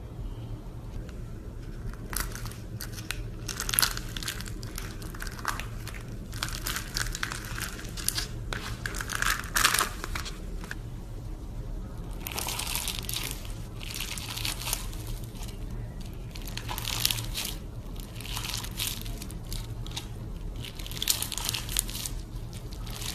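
Slime mixed with orbeez water beads being squeezed and pressed by hand, making bursts of crackling, crunchy squishing that come and go every few seconds over a steady low hum.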